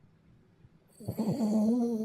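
Bichon Maltese dog snoring in its sleep. There is almost no sound for the first second, then one long snore on a steady pitch begins.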